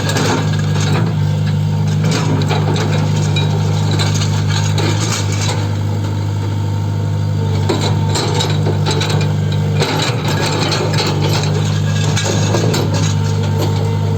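Tata Hitachi Zaxis 120 excavator's diesel engine running steadily, with repeated metallic clanks and knocks from the track chain and undercarriage as the track is worked into place.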